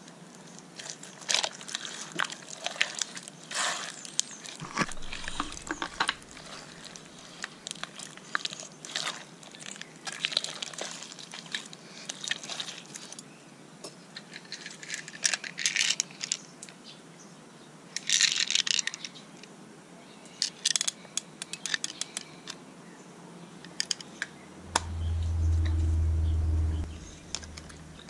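Glitter slime mixed with beads being squished and stretched by hand in a plastic tub: irregular crackling and squishing. A low rumble lasting about two seconds near the end is the loudest thing.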